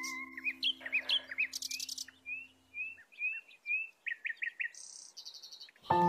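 A songbird singing: a run of short rising chirps a few times a second, then a quick burst of sharp notes and a buzzy high note, over a steady held musical tone that stops about three seconds in.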